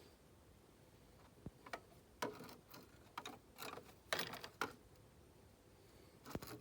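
A series of light, irregular clicks and knocks, clustered in the middle with one more near the end.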